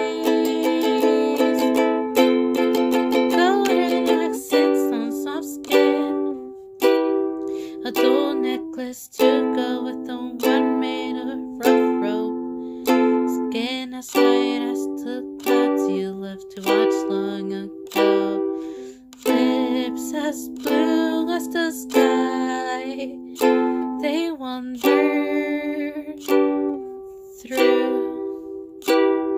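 Solo ukulele strumming chords in an instrumental passage. A new strum comes roughly every second, and each chord rings and fades before the next.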